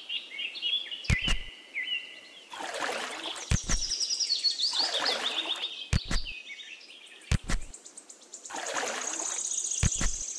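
Birds chirping and trilling throughout, with spells of water sloshing and splashing as goldfish are scooped out of a small pond by hand. Sharp clicks come in quick pairs five times.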